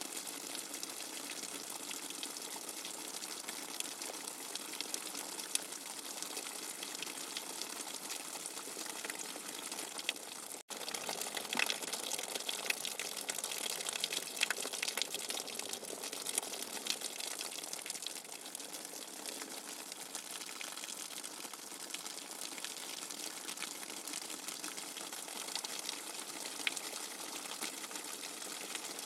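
Steady rushing, splashing water used as a white-noise sleep sound. There is a split-second gap about ten and a half seconds in, and the water then carries on.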